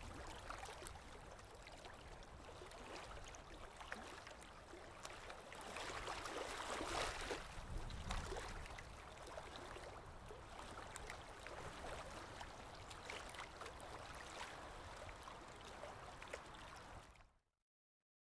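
A faint, steady rushing noise like running water, with small scattered clicks, that cuts off about a second before the end.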